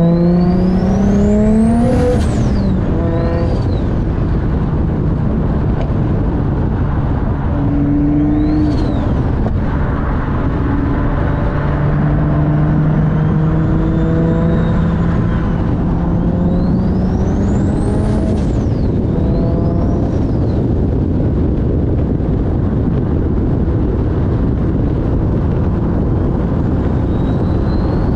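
Turbocharged RB25 inline-six in a Nissan 240SX under hard acceleration: the engine revs climb, and a high turbo whistle rises with them and then drops sharply at the shifts, about 2 seconds in and again near 18 seconds. After that the car runs more steadily with road noise, and the turbo whistle starts rising again near the end.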